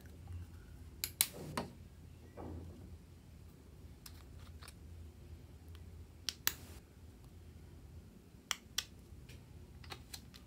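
Scattered sharp clicks and taps of small plastic squeeze bottles of fabric paint being handled and squeezed over slime, a few at a time.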